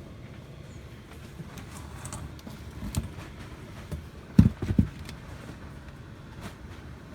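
Steady low background hum, with a single sharp click about three seconds in and a quick cluster of two or three loud, low thumps about a second and a half later.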